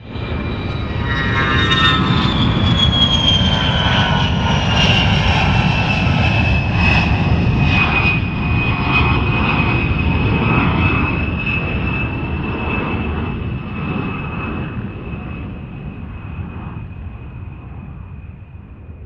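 Jet airliner's engines heard from inside the cabin: a steady heavy rumble with a high whine that falls in pitch over the first several seconds, then holds steady, fading near the end.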